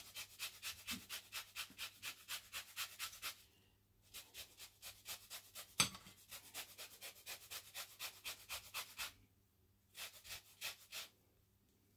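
A lemon being zested on a grater: quick rasping strokes, about four or five a second, in three runs with short pauses between them. One sharp knock about six seconds in.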